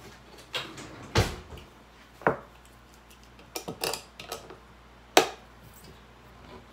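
A metal can and a hand-held can opener handled on a table: a heavy knock about a second in, then a run of sharp clicks and taps as the opener is fitted onto the can's rim. The loudest click comes about five seconds in.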